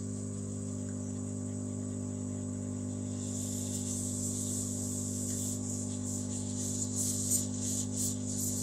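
Hot air rework station blowing unheated air to dry isopropyl alcohol off a phone motherboard: a steady hum with an airy hiss that swells about three seconds in and flickers near the end.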